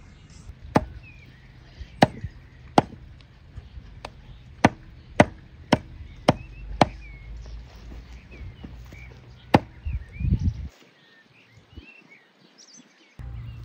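Cleaver chopping through a slab of fat on a wooden stump chopping block: about nine sharp knocks at uneven intervals, with birds chirping faintly. Near the end the sound drops almost to silence for a couple of seconds.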